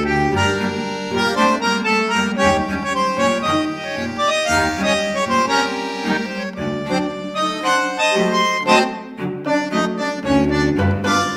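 Instrumental background music: a tune of quick, changing notes over a bass line.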